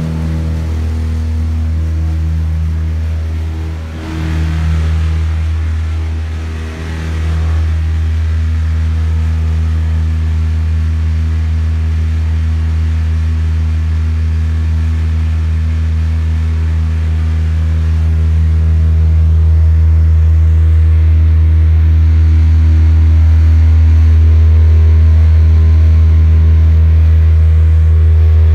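Heavy industrial plant machinery running with a loud, steady low hum of several even tones. The hum dips briefly twice in the first several seconds and grows a little louder about two-thirds of the way through.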